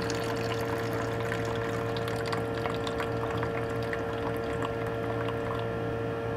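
Rinse water pouring off a glass beaker of silver powder into a plastic bucket, a steady trickle, with a steady hum underneath.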